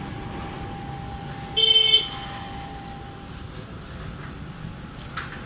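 A vehicle horn honks once, briefly, about one and a half seconds in, over steady street noise.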